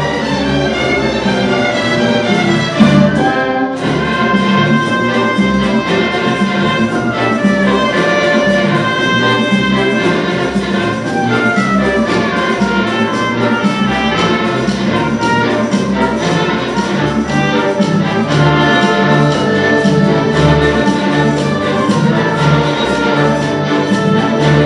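Youth string orchestra playing live: violins, cellos and double basses bowing a continuous classical piece with several melodic lines at once.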